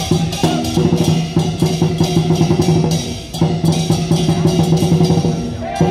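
Chinese dragon dance percussion: a large drum beaten in a fast, driving rhythm with cymbals crashing in time, the beat tightening into quick rolls. The strikes break off for a moment near the end, then pick up again.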